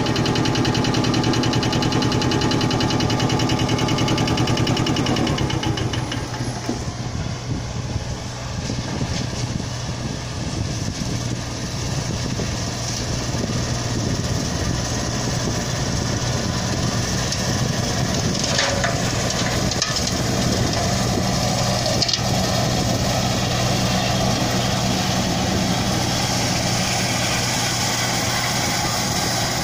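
Ferguson TEF20's four-cylinder diesel engine running steadily while the tractor pulls a drum tedder through straw.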